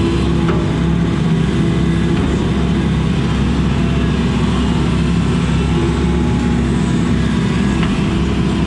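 Excavator's diesel engine running steadily under working load, heard from inside the cab as the machine digs and swings its bucket.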